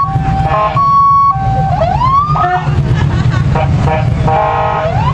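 Several police car electronic sirens sounding at once. First an alternating high-low two-tone, then a rising wail sweep, then rapid chopped yelp-like tones from about three and a half seconds, overlapping another rising sweep near the end. A steady low rumble runs underneath.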